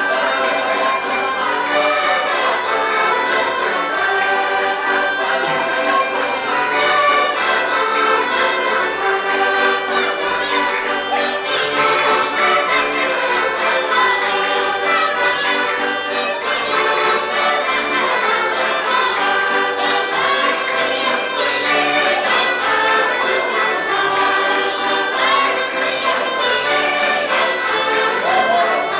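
Portuguese traditional folk dance music: an accordion playing the tune with a group of voices singing along.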